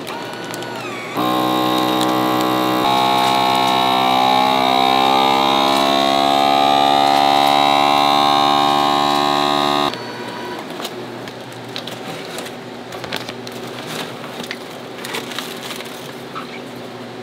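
An electric motor hums steadily, starting about a second in, rising in level a moment later and cutting off abruptly after about nine seconds. Light clicks and knocks follow.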